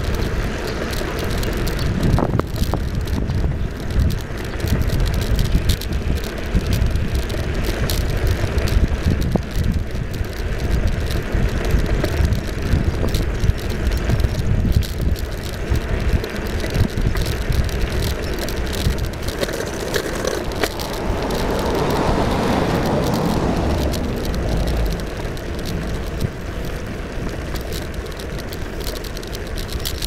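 Wind rumbling on the microphone, mixed with road noise from riding along a road. There is a louder swell of noise a little past the middle.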